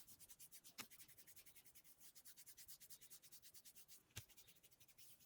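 Near silence with faint, rapid rhythmic rubbing of hands over oiled skin during a back massage, about eight strokes a second. Two soft knocks come about a second in and again near the end.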